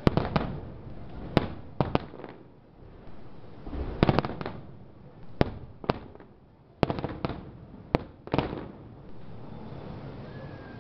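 Fireworks display: a string of sharp bangs from bursting shells, about ten in all and spread unevenly, some coming in quick clusters with rapid crackling.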